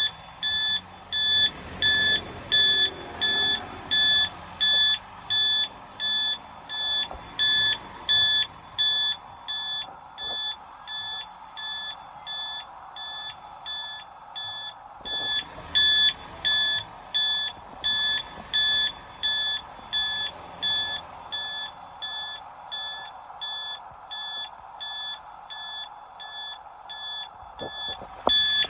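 Audible traffic-signal beeper at a pedestrian crossing: a high electronic beep repeating evenly just under twice a second, louder near the start and again about halfway through, with faint street noise beneath.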